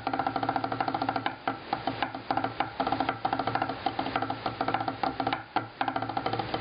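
Rapid drum strokes in a fast, dense drum-corps snare lick, each stroke ringing with a pitched tone, with two brief breaks in the pattern.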